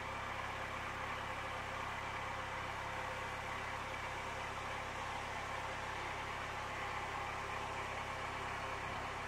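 Narrowboat's diesel engine running steadily, an even hum that does not change.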